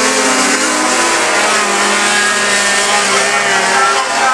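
Racing snowmobile engine held at high revs as the sled accelerates away, a steady high-pitched whine that sags slightly in pitch partway through.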